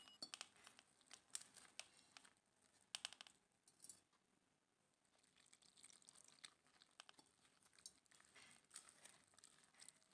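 Faint, scattered crackling and squishing of a hand mixing damp flour dough with chopped onion in a steel bowl, as water is worked into bonda batter.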